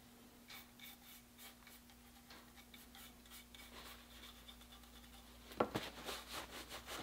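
Faint scrubbing of a toothbrush working stain into the checkering of a wooden shotgun stock, in short repeated strokes. A sharper knock comes about five and a half seconds in, followed by a cloth rubbing over the wood.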